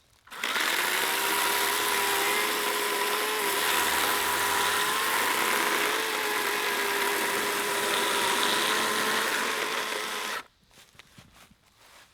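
Battery-powered electric chainsaw running with a steady whine for about ten seconds, starting just after the beginning and cutting off suddenly.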